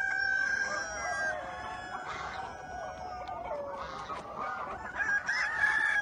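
A flock of chickens clucking, with roosters crowing, their calls overlapping; long drawn-out crows stand out at the start and again near the end.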